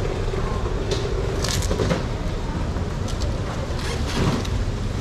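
Steady low rumble of market background noise, with a few brief knocks and clatters about one and a half seconds in, around three seconds, and just after four seconds.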